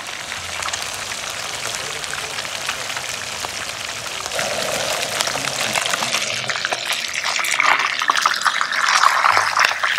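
Trout frying in hot oil in a pan: a steady sizzle with dense crackling that gets louder in the second half.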